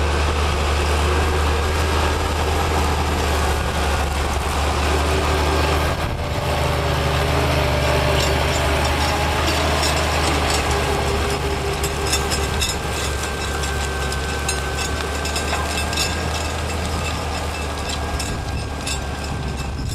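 Massey Ferguson 7495 tractor's diesel engine running steadily under load while pulling a plough, a deep even hum. Through the second half, many light clicks and rattles sound over the engine.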